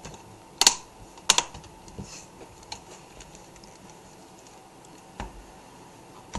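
Plastic snap-fit clips of a Toshiba Satellite T235D laptop screen bezel clicking into place as the bezel is pressed on along its edge. There are two loud, sharp snaps within the first second and a half, then a few fainter clicks, the last about five seconds in.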